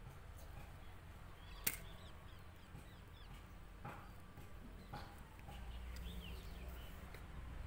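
Scissors snipping through a folded polythene bag sheet: one sharp snip about one and a half seconds in and two softer ones later. Faint bird chirps in the background.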